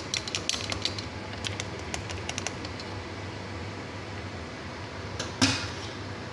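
Light, quick clicks and ticks of kitchen utensils at a steel cooking pot while salt is added, thinning out after about two and a half seconds, then one sharper knock about five seconds in.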